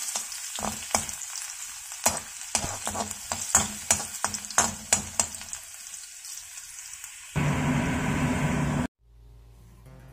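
Minced garlic sizzling as it fries in hot oil in a wok, with a metal slotted spatula clicking and scraping against the pan over the first five seconds. Near the end a louder rushing noise comes in for about a second and a half, cuts off suddenly, and quiet acoustic guitar music begins.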